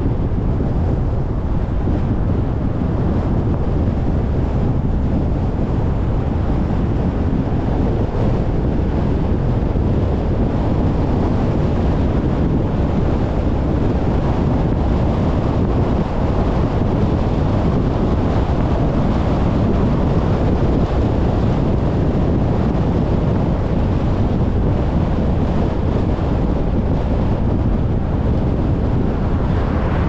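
Steady low rumble of wind buffeting the microphone, even and unbroken, with no distinct events.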